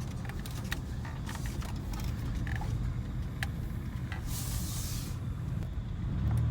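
Car engine running at low speed, a steady low hum with small clicks and rattles. A short hiss sounds about four seconds in, and the engine hum grows louder near the end.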